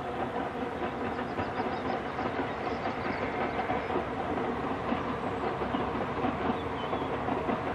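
Narrow-gauge 0-4-0 well-tank steam locomotive Dolgoch working steadily as it hauls its coaches past, with the steady clatter of the coaches' wheels along the track.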